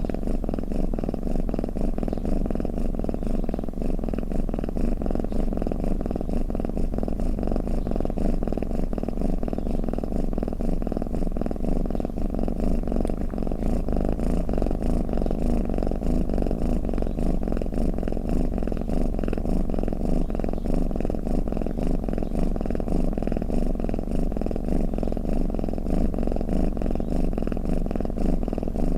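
Domestic cat purring steadily without a break, a low, rapidly pulsing sound.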